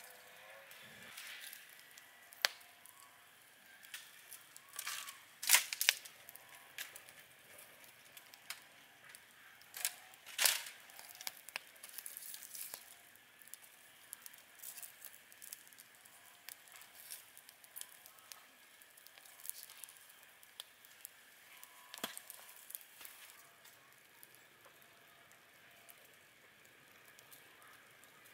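Irregular sharp clicks and taps mixed with crackling and rustling over a faint hiss, with the loudest cluster about five seconds in and another about ten seconds in.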